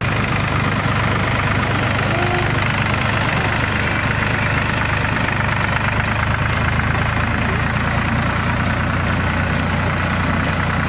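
Tractor engine running steadily as the tractor rolls slowly past, a constant low engine note.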